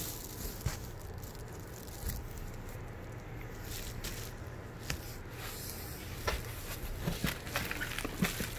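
Faint handling of packaging: scattered light rustles, crinkles and soft taps as hands rummage through plastic ingredient bags and a bubble-wrap insulated liner in a cardboard box, more of them in the second half, over a low steady hum.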